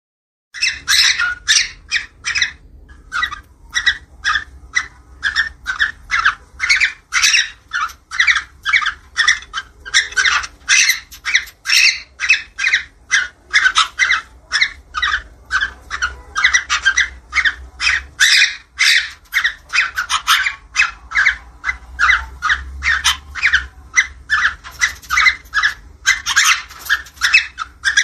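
Cockatiels giving mating calls, a rapid, unbroken run of short, sharp chirping squawks at about two or three a second, starting about half a second in.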